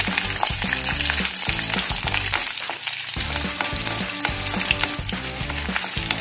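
Chana dal, garlic, ginger and dried red chillies sizzling in hot oil in a metal kadai, stirred with a wooden spatula that scrapes against the pan. Background music plays underneath.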